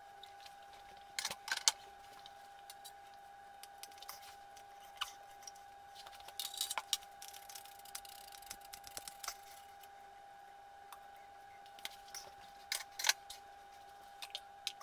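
Scattered light clicks and clinks as the rusty steel plate of a Sandvik 275 handsaw and its loose parts are handled and set down on a table, the loudest pair about thirteen seconds in. A faint steady tone sits underneath.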